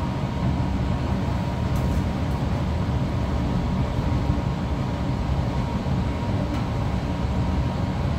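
Laminar flow cabinet's blower running, a steady low rumbling rush of air with a faint thin whine over it. A couple of faint light clicks from handling the syringes.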